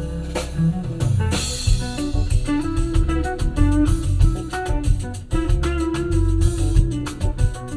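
Instrumental music with plucked guitar and a drum kit, played back through a car's audio system.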